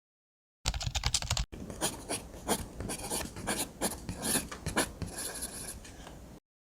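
A short burst of rapid clicking, then several seconds of irregular scratching and rubbing with sharp ticks, cut off abruptly near the end.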